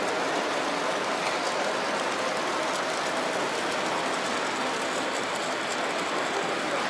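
H0-scale model trains rolling over the layout's track: a steady running noise with faint light ticks from the wheels over the rails.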